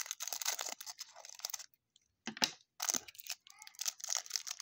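Clear plastic wrapper on a pack of trading cards crinkling and tearing as it is cut with scissors and pulled open. It comes in two stretches of crackling with a short pause about two seconds in.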